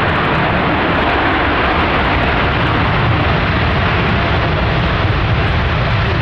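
Jet airliner's engines: a loud, steady roar of engine noise with no change across the few seconds.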